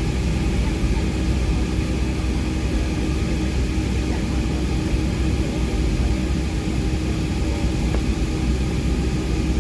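Cabin drone of a Boeing 757-200 with its Rolls-Royce RB211 engines running steadily at low power: a deep rumble with a faint steady hum, heard from inside the cabin.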